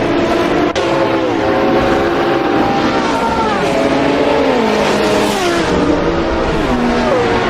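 Racing car engines running at high revs, their pitch dropping sharply over and over, about once a second. There is a brief click near the start.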